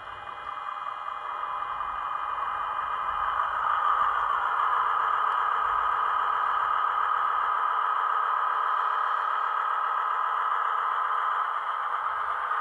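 Model train of a Class 261 locomotive and tank wagons running along the track with a steady rolling, rattling hum, growing louder over the first four seconds and then holding steady.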